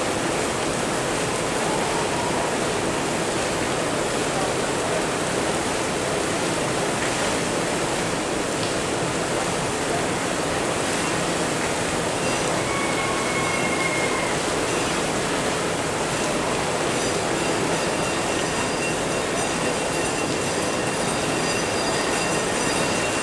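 Steady rushing noise at a constant level, with no clear single source. Faint high steady tones join it about two-thirds of the way through.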